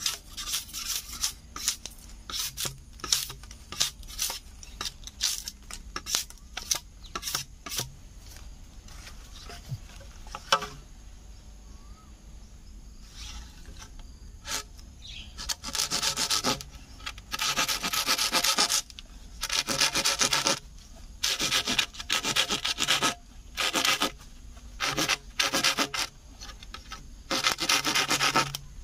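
Machete chopping at a green bamboo pole in quick sharp strikes for the first ten seconds or so. Then, after a pause, the blade is sawn back and forth across a bamboo tube in long scraping strokes of about a second each, repeated steadily.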